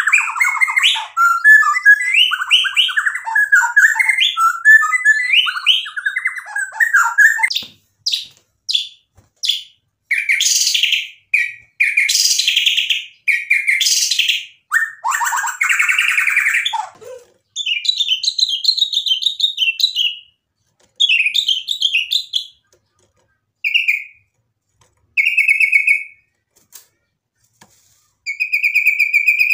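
White-rumped shama singing. A fast run of varied warbling notes gives way at about seven seconds to harsh rasping notes, then to short clear whistled phrases with pauses between them.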